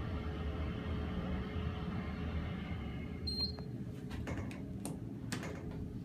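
KONE KSS220 hydraulic elevator car travelling with a steady low rumble that dies away about three seconds in as it comes to a stop. A short high beep follows, then several sharp clicks as the car's floor buttons are pressed.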